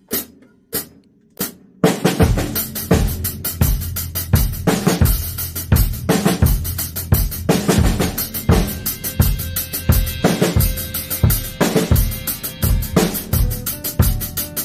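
Three sharp separate clicks, then about two seconds in a drum kit comes in and plays a steady, busy groove of bass drum, snare and cymbals.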